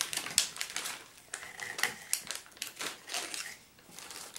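Clear plastic parts bag crinkling and rustling as it is handled, in irregular bursts of crackles and clicks that are densest in the first second and thin out towards the end.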